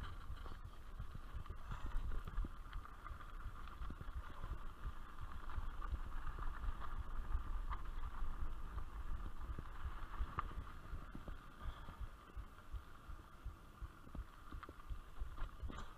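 Rolling and rattling noise of a mountain bike being ridden on a dirt trail, a continuous fluctuating low rumble with a steady higher hiss over it.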